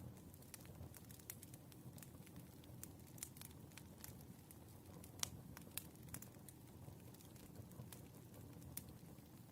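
Burning firewood crackling faintly, with irregular sharp pops over a low rumble; the loudest pop comes about five seconds in.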